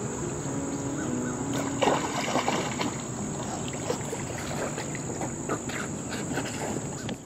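Outdoor ambience with insects droning steadily at a high pitch over a background hiss, and a cluster of short clicks and rustles about two seconds in.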